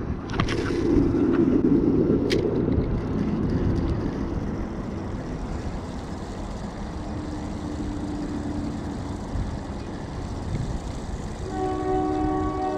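A steady low outdoor rumble with a few light clicks early on, then a train horn sounding a steady chord of several notes, starting about a second before the end.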